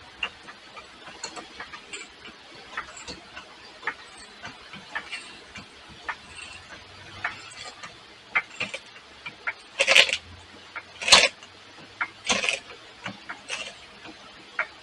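Hydraulic floor jack being pumped by its handle to lift the car, a string of clicks and short strokes. In the second half the strokes come louder, about one every second.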